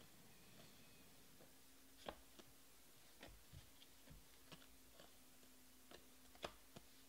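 Faint, irregular clicks and light snaps of glossy Panini Prizm baseball cards being flipped one by one from the front of a hand-held stack to the back, starting about two seconds in, over a faint steady hum.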